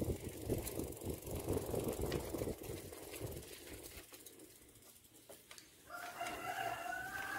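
Low wind rumble on the microphone from moving along the lane, fading away over the first few seconds. About six seconds in, a drawn-out animal call with a clear, slightly wavering pitch begins and lasts about a second and a half.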